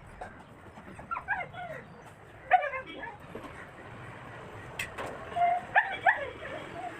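A dog giving short, high-pitched calls in three bouts: about a second in, around two and a half seconds, and again in the last two seconds. Two sharp clicks come just before the last bout.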